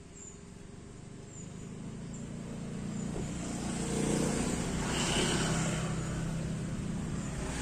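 A motor vehicle's engine approaching, growing steadily louder over about four seconds and staying loud toward the end.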